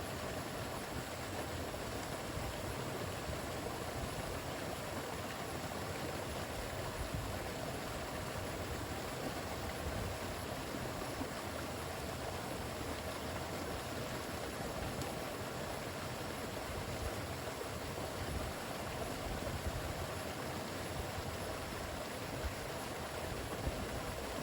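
Steady, unbroken rush of water, an even hiss with no breaks: rain falling and a river running high after heavy rain.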